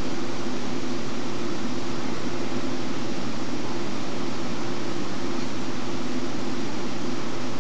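A steady, unchanging hiss with a constant low hum beneath it.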